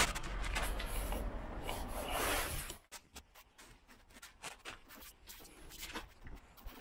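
Hands handling bicycle headset parts and a small tool, rubbing and rustling for the first few seconds. The rustling stops abruptly, followed by scattered small clicks of metal and plastic parts.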